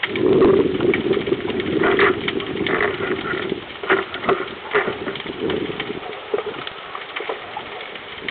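Underwater sound heard through a camera housing: a low steady rushing that fades about six seconds in, with scattered sharp clicks and crackles throughout.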